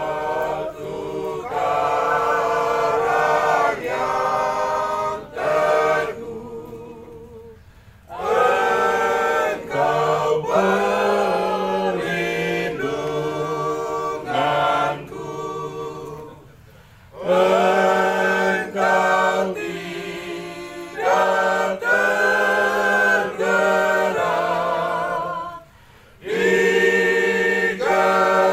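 A choir singing in sung phrases with short breaths between them, apparently unaccompanied.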